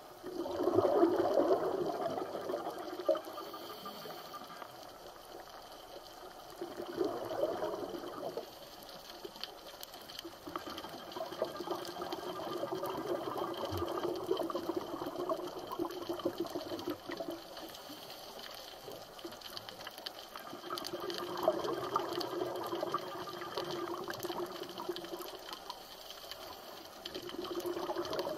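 Scuba regulator exhaust bubbles heard underwater: a gush of bubbling each time the diver breathes out, in bursts a few seconds long every five or six seconds, with quieter stretches between.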